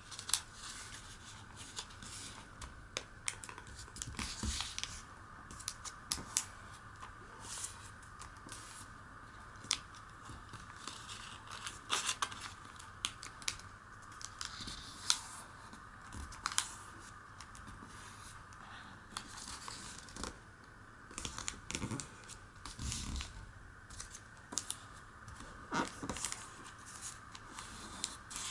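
Origami paper being folded and creased by hand: irregular rustles, crinkles and sharp little crackles as the fingers press the folds flat.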